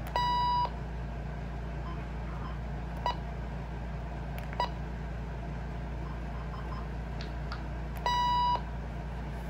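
Electronic beeps from a RadioShack 12-260 weather radio as its buttons are pressed to set the clock and alarm. There are two half-second beeps, one at the start and one near the end, with two short blips between them, over a steady low hum.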